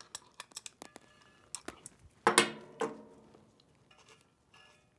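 Metal clicks and clinks of a wrench loosening the fluid screw nut on an aluminium spray gun. Just over two seconds in comes a louder ringing metal clank, with a smaller one about half a second after.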